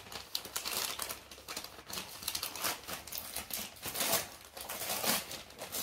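Shiny gift wrapping paper crinkling and rustling as it is pulled open by hand, in quick irregular crackles.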